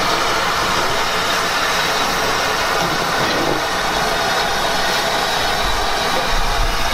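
Rebuilt West Country class steam locomotive 34027 Taw Valley hissing steam steadily as it rolls slowly along, with no exhaust beats heard. A low rumble builds near the end.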